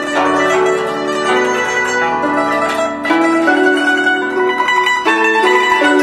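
Guzheng (Chinese zither) being played solo: a run of plucked notes that ring on, with a fresh phrase entering about three seconds in and again near the end.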